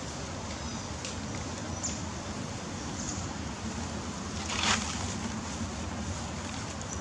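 Steady outdoor background hiss like wind, with a short scratchy rustle of dry leaves about four and a half seconds in as macaques handle the leaf litter, and a few faint ticks.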